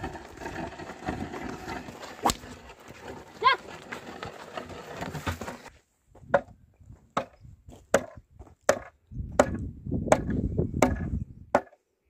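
Ox-drawn wooden plough being worked through dry soil: a steady scrape and shuffle of hooves and ploughshare, with a brief high call about three and a half seconds in. After an abrupt change halfway, a run of sharp separate knocks comes roughly one every 0.7 s.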